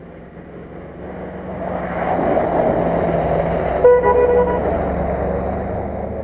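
Land Rover Discovery's engine running hard as the 4x4 approaches and passes close, its tyres churning through mud; the sound swells, then fades as it drives away. About four seconds in, a short horn toot sounds as it goes by.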